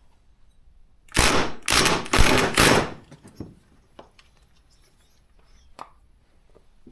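Impact wrench hammering in three or four short rattling bursts, from about one to three seconds in, loosening the reverse-thread clutch of a Stihl MS200T chainsaw. A few light clicks follow.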